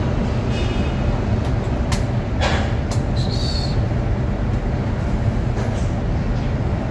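Steady low rumble of background machinery, with a few sharp clicks about two to three seconds in.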